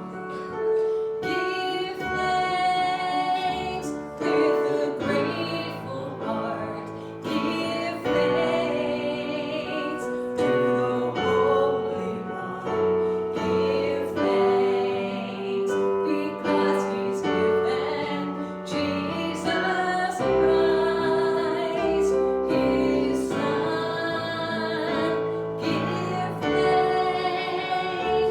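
Music: a woman singing with piano accompaniment, long held notes over a moving bass line.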